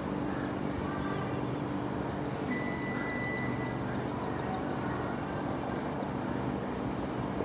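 Steady low motor hum, with short high bird chirps about once a second and a brief thin whistle-like tone a little before the middle.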